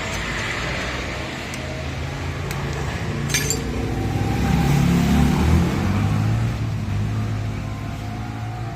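A motor vehicle engine running, growing louder to a peak about five seconds in and then fading, as a vehicle passing by would, with a single metallic clink about three and a half seconds in.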